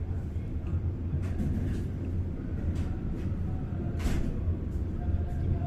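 Steady low rumble of a moving passenger train heard from inside a coach, with a few faint clicks and a short sharp hiss about four seconds in.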